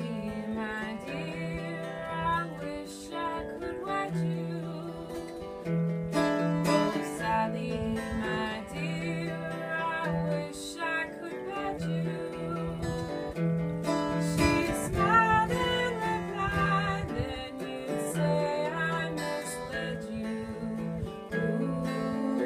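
Acoustic guitar playing a slow folk-style tune, plucked and strummed over a low held note, with a wavering melody line above it.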